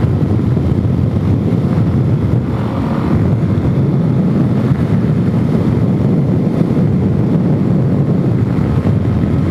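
Suzuki DR-Z400S single-cylinder four-stroke engine running steadily at a cruising speed of about 60 mph, with wind rushing over the microphone.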